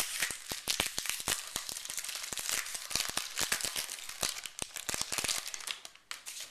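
A 1991 Bowman football card pack's wrapper crinkling and tearing as it is opened by hand, a dense run of crackles that dies away near the end.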